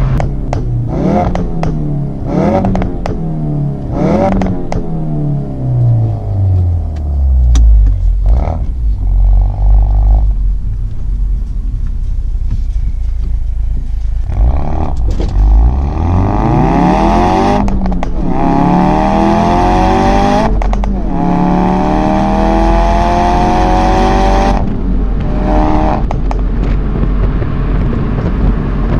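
Ford Focus RS Mk3's 2.3-litre turbocharged four-cylinder engine and exhaust. It starts with a few quick revs that rise and fall, then a long drop in revs. Later the engine pulls up through the revs in several runs, each cut off short, as in gear changes, with a few sharp cracks between.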